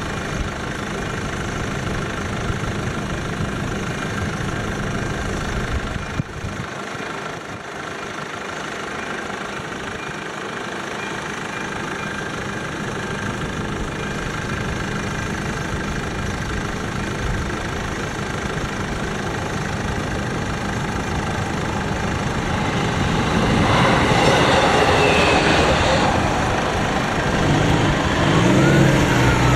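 Level-crossing warning bell ringing steadily over idling car engines. About two-thirds of the way in, a train passes over the crossing and the sound swells for a couple of seconds. Near the end a tone rises and falls.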